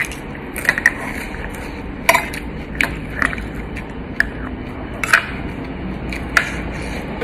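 Metal spoon and fork clinking and scraping against a ceramic plate of rice, about eight short sharp clinks spread through, over a steady low background hum.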